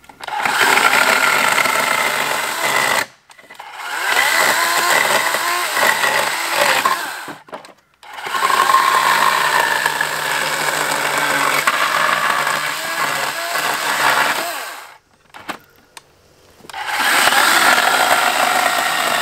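Battery-powered chainsaw cutting through old pallet wood, in four separate cuts of a few seconds each with short pauses between.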